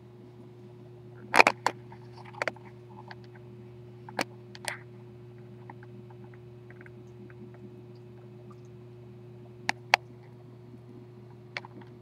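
Scattered sharp clicks and knocks, the loudest cluster about a second and a half in and two more close together near the end, over a steady low hum.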